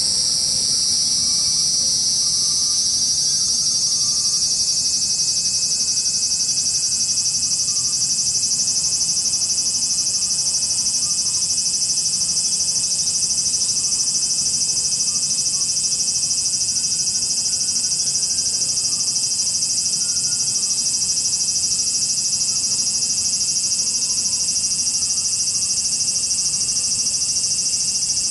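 Cicadas in Japan buzzing loudly in one continuous, high-pitched drone. It rises slightly in pitch over the first couple of seconds, then holds steady.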